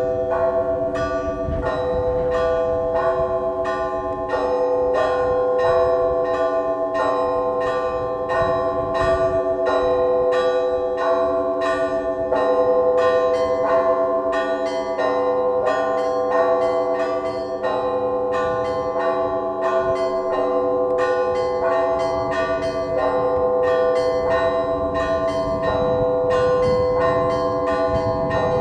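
Russian church bells rung by a bell ringer in a matins peal: quick strikes of small bells, several a second, over the long ringing of larger bells.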